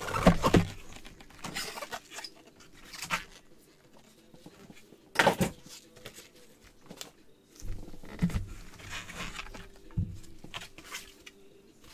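Cardboard box and foam insert handled with gloved hands: scattered scrapes, rustles and light taps, with one sharper knock about five seconds in.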